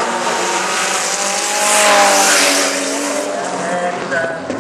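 Two drift cars sliding in tandem, engines revving hard at high rpm with the pitch rising and falling, over the loud squeal of tyres spinning and skidding sideways. Loudest about two seconds in.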